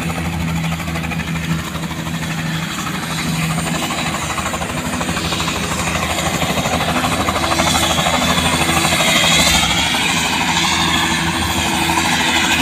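Light helicopter running on the ground at idle after landing: a steady low hum from the rotor and engine, with a wavering high whine that grows louder in the second half.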